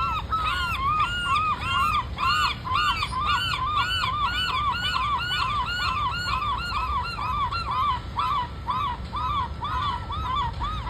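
Gulls calling in a fast, unbroken series of short arched calls, about three or four a second, as two gulls fight. A low steady rumble runs underneath.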